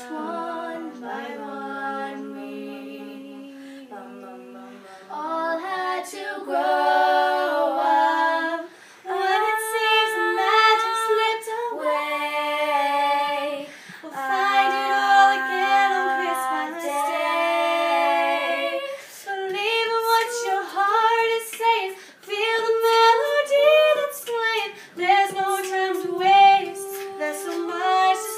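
Three girls singing a cappella in harmony, with no instruments. Soft held chords for the first five seconds or so, then louder sung phrases with short breaks between them.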